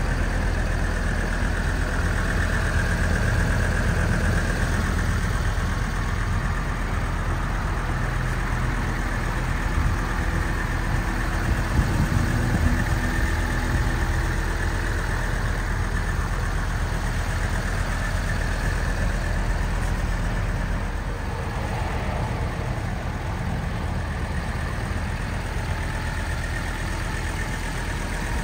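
1980 Mercedes-Benz 300SD's five-cylinder turbo diesel engine running steadily, a little quieter for the last several seconds.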